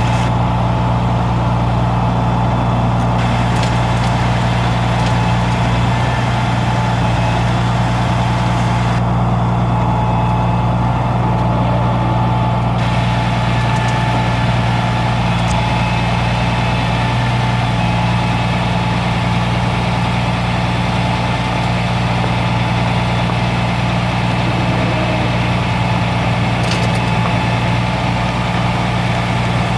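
Caterpillar C13 inline-six turbo diesel of a Freightliner M2 digger truck idling steadily, a low even drone that does not change.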